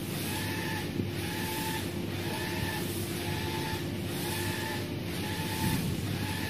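UV flatbed printer's print-head carriage shuttling back and forth over the bed, its drive giving a short whine on each pass, about twice a second, over a steady low machine hum.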